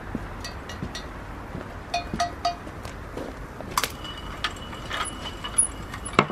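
Wood fire crackling with scattered small pops, and metal clinking as a cast-iron Dutch oven is hung on its tripod hook, with a ringing clink about four seconds in and a louder clank near the end.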